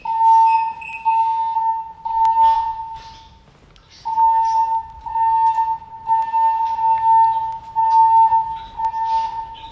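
Fire alarm voice-evacuation speakers sounding a steady single-pitched alarm tone in pulses of about a second each with short breaks between, and a longer pause about three seconds in. This is the alert tone that plays between repeats of the spoken evacuation message, here set off by a manual pull station during an alarm test.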